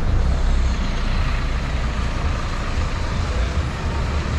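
Street traffic with a heavy vehicle, such as a bus or truck, running close by: a steady low engine rumble over general road noise.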